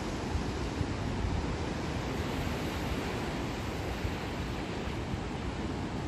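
Sea surf breaking and washing up a sandy beach: a steady rush of waves with a low rumble underneath.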